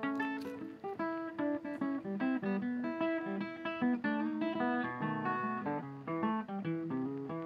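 Background music: acoustic guitar playing a quick plucked melody over chords.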